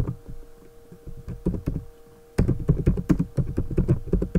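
Typing on a computer keyboard: runs of quick keystrokes that come faster and louder from about halfway through, over a steady faint hum.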